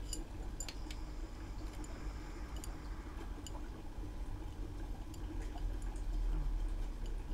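A few scattered light metallic clicks and taps as steel cylinder studs are handled and fitted into an aluminium Honda C70 crankcase, over a low steady background rumble.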